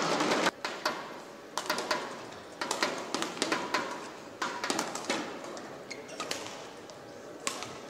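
Badminton rally: rackets striking a shuttlecock back and forth, sharp hits about once a second over the background noise of the hall. At the start, a burst of crowd noise cuts off abruptly about half a second in.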